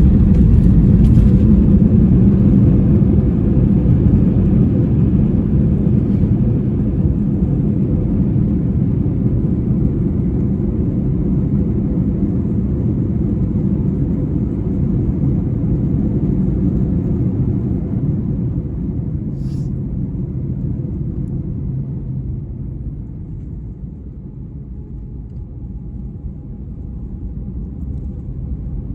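Airbus A321-200 cabin noise during the landing rollout: a deep rumble from the engines and the wheels on the runway that fades steadily as the airliner slows, with a faint steady tone running through it.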